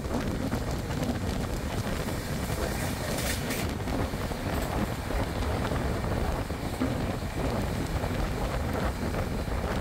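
Passenger train running at speed: a steady rumble of the coach wheels on the track, with wind buffeting the microphone. A brief hiss rises over it about three seconds in.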